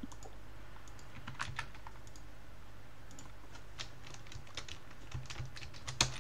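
Typing on a computer keyboard: scattered, irregular keystrokes in short runs, with one louder click near the end.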